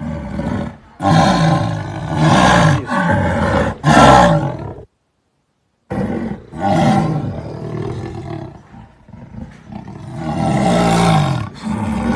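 Jaguar roaring: a series of low, grunting calls, roughly one a second, broken by a second of complete silence about five seconds in.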